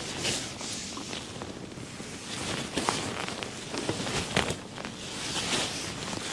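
Wind noise on the microphone, with rustling and a few light knocks and clicks from an angler handling his gear at his seat.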